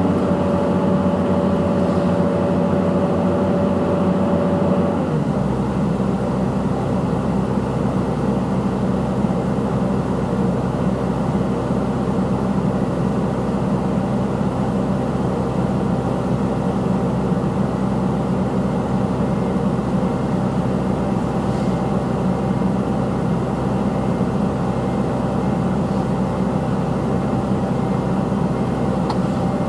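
Diesel engine of a CAT 320C hydraulic excavator running steadily as the machine works. About five seconds in, a thin whine stops and the low engine note deepens.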